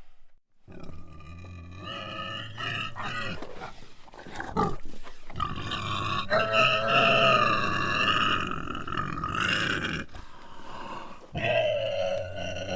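Hog squealing: a string of high-pitched squeals and grunts, with one long drawn-out squeal lasting about four seconds in the middle.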